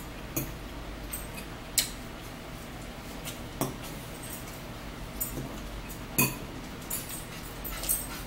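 Metal forks clinking and scraping in salad bowls during eating: scattered sharp clinks every second or so, the loudest about two seconds in and about six seconds in, over a low steady hum.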